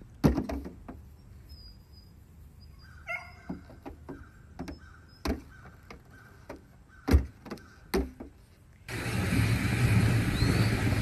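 A young goat's hooves knocking on a car's metal bonnet and windscreen as it moves about on it: a handful of sharp, separate knocks. About nine seconds in, a loud, steady outdoor rumble takes over.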